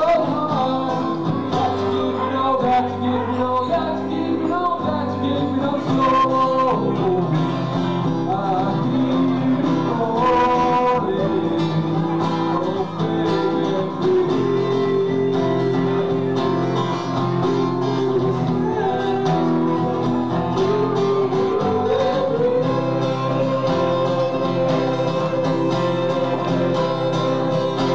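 Live band music: a male singer singing into a microphone over guitar accompaniment, ending on a long held note.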